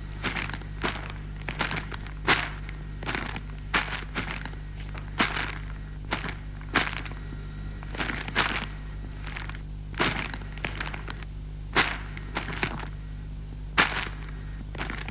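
Shovels digging into earth and clods: an irregular run of sharp thunks and scrapes, about two a second.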